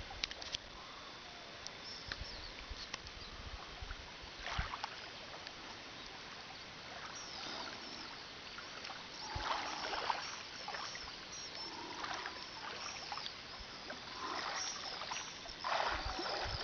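Faint splashing and lapping of calm sea water as a person swims, with a few louder splashes now and then.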